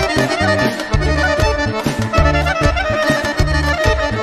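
Bulgarian Roma kyuchek dance tune played by a folk band, led by accordion with clarinet, over a repeating bass beat.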